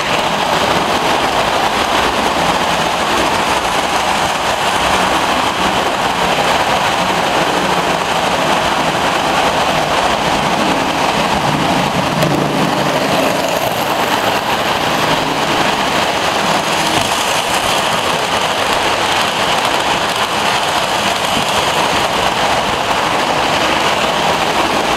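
Lionel O-gauge model train running along the track, a steady rattling rush of metal wheels on rails that keeps an even level throughout.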